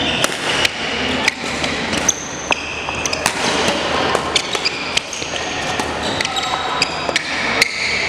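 Badminton rally on a wooden sports-hall floor: sharp racket strikes on the shuttlecock at irregular intervals, with short high shoe squeaks as the players move and lunge.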